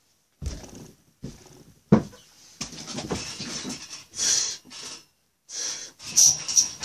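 Knocks, bumps and rustling from people moving about off camera, with one sharp knock about two seconds in.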